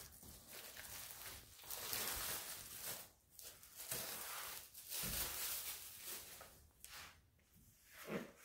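Plastic shrink-wrap being peeled off an LP record sleeve, crinkling and rustling in irregular bursts.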